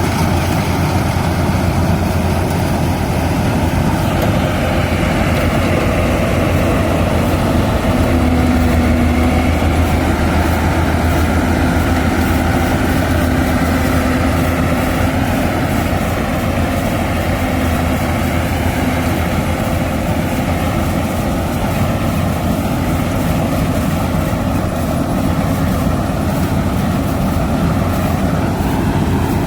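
Yanmar AW82GV combine harvester running steadily, its engine and threshing machinery giving a continuous loud low drone while it harvests rice.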